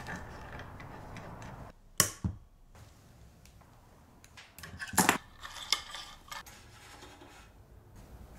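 Aluminium jig parts being handled and clamped on a workbench, metal clicking and knocking against metal: a sharp knock about two seconds in and a cluster of clicks around five seconds.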